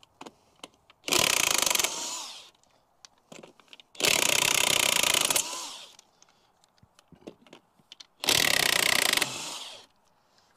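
Cordless impact wrench hammering lug nuts off a wheel: three bursts of about a second each, each trailing off as the trigger is released. Small clicks and clinks of the nuts come between the bursts.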